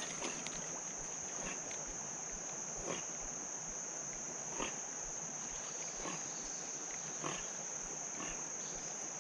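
A muskrat snarling, in about six short harsh sounds spaced a second or so apart, over a steady high drone of insects.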